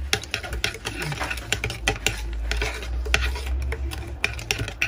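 A teaspoon stirring ground coffee, sugar and water for Turkish coffee, clinking irregularly against the rim and sides of the container. A steady low hum runs underneath.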